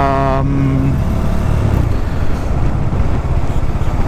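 Motorcycle under way: a steady low engine and road rumble, with the last syllable of a spoken phrase in the first half second.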